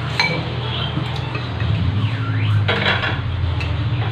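Cutlery clinking and scraping against a plate while eating: several separate sharp clinks, the busiest stretch about two and a half seconds in, over a steady low hum.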